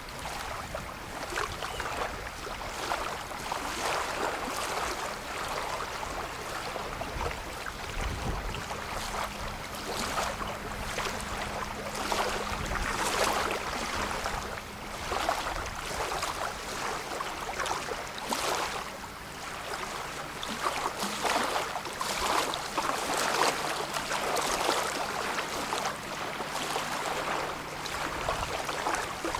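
Lake water lapping and washing at the shore, rising and falling in uneven surges, with a faint steady low hum of a distant boat motor from about nine seconds in.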